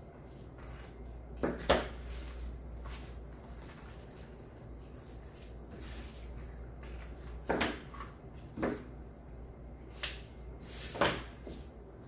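Two sharp scissor snips through wired ribbon about a second and a half in, followed later by several more short clicks and knocks of craft supplies being handled and set down.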